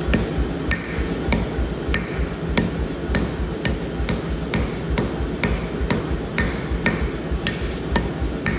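Hand hammer striking a red-hot stainless-clad san mai knife blade on an anvil in a steady rhythm of about one and a half blows a second, each blow a sharp metallic clank with a brief ring, over a steady low hum.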